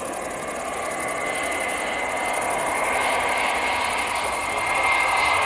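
Jet engines of a Lufthansa Airbus A320-family airliner on landing approach: a steady rushing noise with a thin high whine over it, growing louder as the aircraft nears and flares over the runway.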